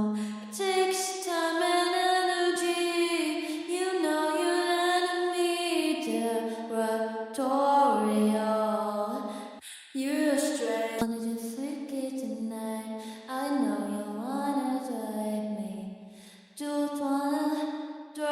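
Female vocals singing a pop melody for a song demo, with no bass or drums under them, breaking off briefly about ten seconds in.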